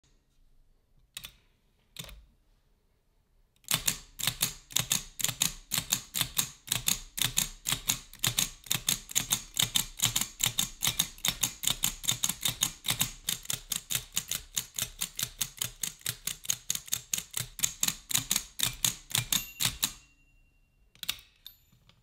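Blickensderfer No. 5 typewheel typewriter being typed on: two single keystrokes, then a steady run of key clicks at about five a second for some sixteen seconds, ending with a brief ringing tone. A few more clicks follow as the carriage end is worked by hand.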